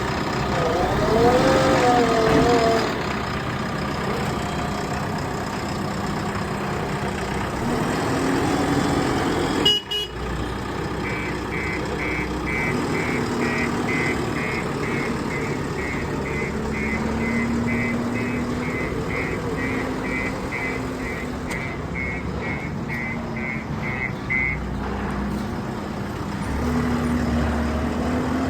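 JCB construction machine's diesel engine running, with its reversing alarm beeping steadily at about three beeps a second for roughly thirteen seconds in the middle. There is a brief break in the sound about ten seconds in.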